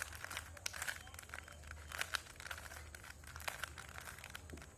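A 3×3 Rubik's cube being scrambled by hand, its plastic layers turning with a quick, irregular run of clicks and clatters.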